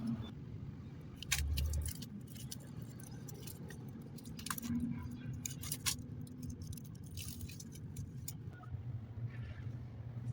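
Metal tools clinking and tapping in a run of short, irregular clicks, with a dull thump about a second and a half in, over a steady low hum.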